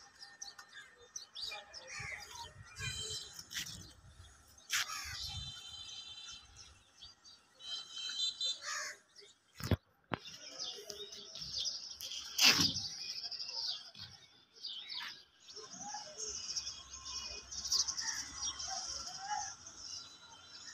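Small birds chirping and twittering in short, scattered calls and trills, over a faint outdoor background hiss.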